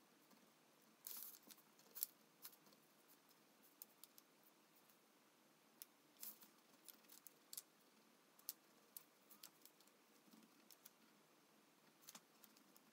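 Faint, irregular scratches and ticks of a fine-tipped marker pen drawing on paper, with the sheet being shifted on the table.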